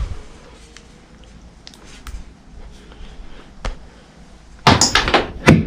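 Scattered metal clicks and knocks of tools and parts being handled during a flywheel swap on a 4.6L V8, with a louder cluster of clanks about five seconds in.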